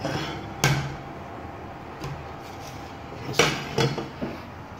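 Solid fibreglass surfboard keel fins knocking as they are handled: one sharp hard clack a bit under a second in, then two more close together a little after three seconds.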